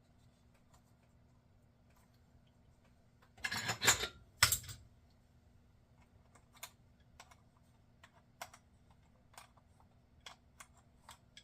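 Light clicks from a Zebco 2020 spincast reel and small tools being handled while the handle nut goes back on, with two louder clatters about three and a half and four and a half seconds in.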